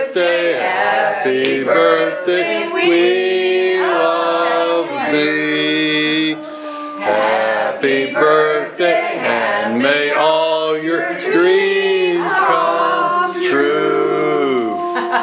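Several people singing a birthday song together, with male voices among them, in long held notes.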